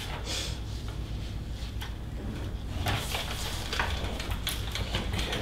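Sheets of paper rustling and being shuffled on a meeting table in a few short, irregular strokes, over a steady low hum.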